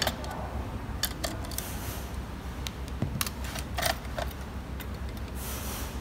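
Screwdriver clicking and tapping against the metal housing of a battery-powered LED uplight as its screws are worked loose, a handful of separate clicks, then a short scraping rustle near the end as the housing is pulled apart.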